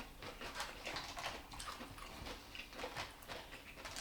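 A person chewing food close to the microphone: a quick, irregular run of small clicks and crunches, several a second.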